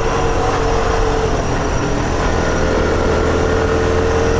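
Honda CT110 postie bike's 105cc single-cylinder four-stroke engine running steadily under way, heard from the bike itself, with a steady hum and road noise.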